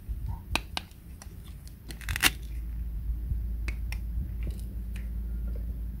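Plastic toy fruit pieces being handled and cut: several sharp plastic clicks and a brief rasping tear about two seconds in, which is the loudest sound. A steady low rumble sits underneath from about two seconds on.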